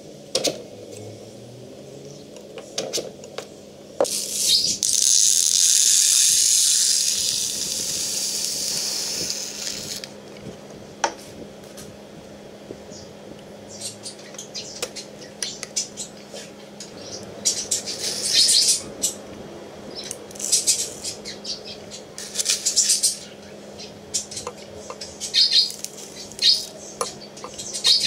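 Small lead shot pellets clicking and rattling as they are dropped a few at a time into a plastic shotgun hull being weighed on a digital scale. About four seconds in there is a loud continuous hiss lasting roughly six seconds.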